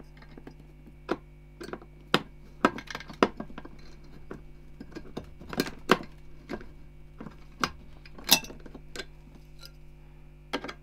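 Irregular sharp metallic clicks and clinks of a CPU air cooler's mounting hardware (the heatsink base and its spring-loaded screws) being handled and set down over the motherboard's mounting holes.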